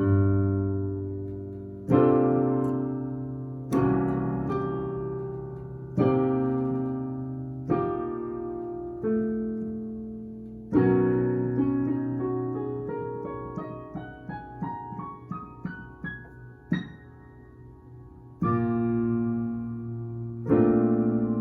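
Piano playing slow chords, each struck and left to ring and fade, about one every two seconds. In the middle comes a rising run of single notes, and two more chords follow near the end.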